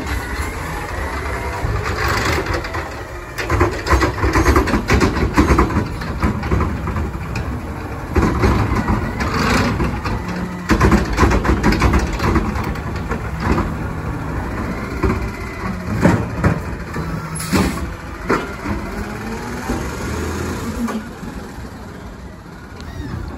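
2024 Autocar McNeilus ZR automated side-loader garbage truck running on natural gas as its hydraulic arm grabs, lifts and dumps a recycling cart. The hydraulics whine and the cart bangs repeatedly against the hopper, a short hiss of air comes about three quarters of the way through, and the truck pulls away, growing quieter near the end.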